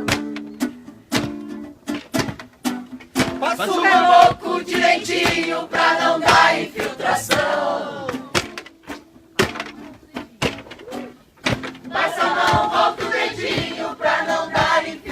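Music: a strummed acoustic guitar with voices singing over it. The guitar plays alone at first and again in a pause between the two sung passages.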